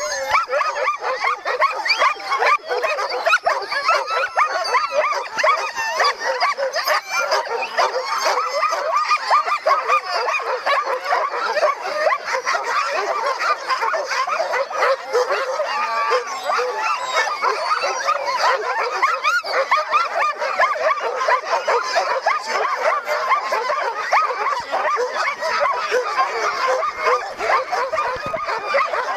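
A pack of sled dogs barking and yipping all at once: a continuous din of many overlapping voices with no pause, the clamour of mushing dogs straining on their chains and eager to run.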